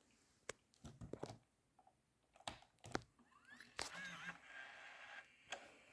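Faint, scattered clicks and handling noise as a JVC VideoMovie GR-AX720 camcorder is switched on, with a brief faint rising chirp about four seconds in.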